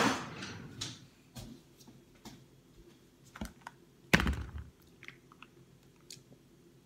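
Clicks and taps of things being handled on a kitchen counter, with a rustle at the start and one louder knock about four seconds in; near the end, faint crunching as a snack is bitten and chewed.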